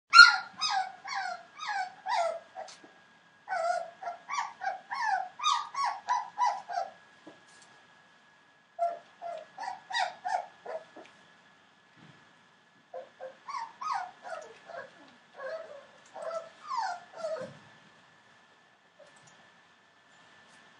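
Four-week-old Entlebucher Mountain Dog puppies whining and yelping: high-pitched cries that each fall in pitch, coming several a second in four bouts with short pauses between.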